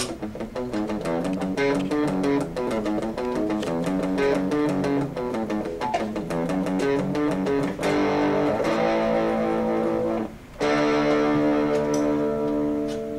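Electric guitar played through the speaker of a homemade ammo-box guitar tuner: a quick run of picked single notes, then chords held, and a last chord struck about ten and a half seconds in that rings out and fades.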